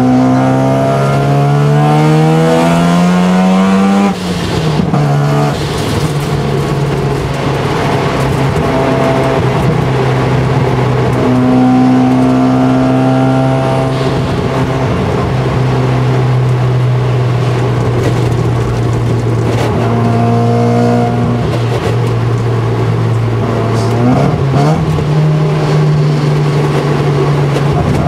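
Mazda RX-7 FD3S's single-turbo 13B rotary engine, heard from inside the cabin, revving up under a pull for about four seconds. It briefly drops away at a gear change, then holds a steady high pitch at cruising speed. The revs step up again near the end.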